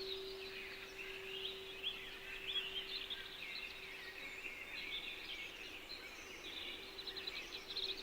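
Many small songbirds chirping and twittering together, over one steady low hum tone of a meditation frequency that sinks down in the middle and swells back near the end.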